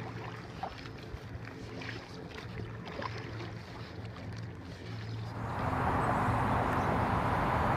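Faint splashes of a paddle dipping in the water beside a tarp-and-branch canoe, over a low steady hum. About five and a half seconds in, a louder steady rushing noise takes over.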